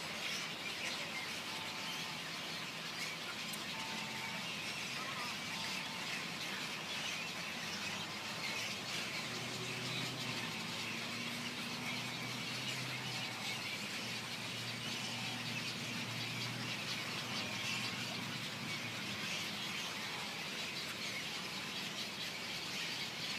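A large flock of birds calling all at once, a dense, continuous chatter of many overlapping short calls. A low steady hum sits under it for several seconds partway through.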